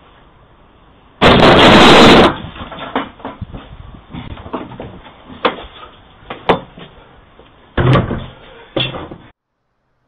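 A loud rattling rush lasting about a second, then a string of sharp knocks and bangs of a wooden gate being shoved and shaken.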